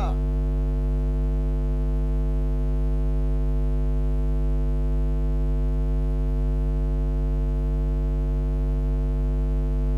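Steady electrical hum with a ladder of evenly spaced overtones, unchanging and as loud as the commentary around it, the kind of mains buzz picked up in a broadcast's audio chain.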